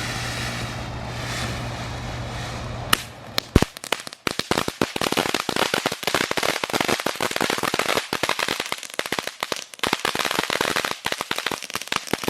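Ground firework fountain burning: a steady hissing spray, then from about four seconds in a dense, fast crackling that keeps going.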